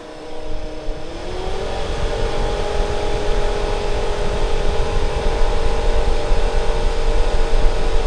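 VEVOR diesel heater's blower fan motor, driven by a custom ESP32 PWM controller, speeding up: its whine rises in pitch over the first couple of seconds as the speed setting is raised, then holds steady and grows louder, with a low rush of air underneath.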